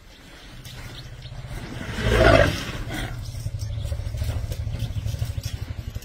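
A short, loud elephant call about two seconds in, over a low, steady, pulsing rumble like an idling engine.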